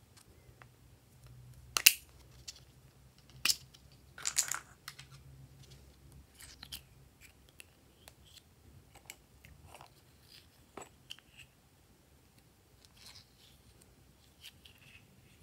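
Small plastic Vaseline pots being handled and opened: a few sharp plastic clicks and crackles in the first five seconds, the loudest about two seconds in. Then a thin metal spatula scrapes petroleum jelly out of a pot, with soft scrapes and light ticks.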